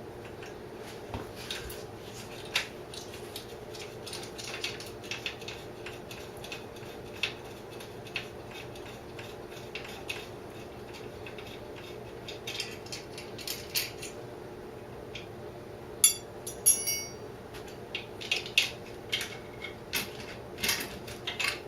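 Hand tools clinking and clicking on metal as a 10 mm wrench or socket undoes the battery clamp bolt on a Honda CL160 motorcycle, with a quick run of clicks about sixteen seconds in. A steady faint hum sits underneath.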